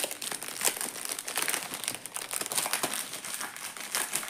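Plastic packets of diamond-painting drills crinkling as they are handled, a dense, irregular crackle.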